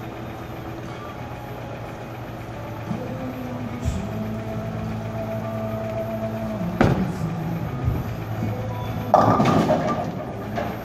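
A Brunswick Radical Rack Attack bowling ball lands on the lane with a sharp knock about seven seconds in and rolls down it with a low rumble, then crashes into the pins about two seconds later. A steady low hum of bowling-alley machinery runs underneath.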